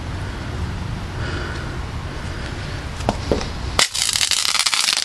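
Universal Rub It Crackle friction firework slider being rubbed under a shoe on concrete: a couple of small snaps a little after three seconds, then about a second of loud, dense crackling from near four seconds in.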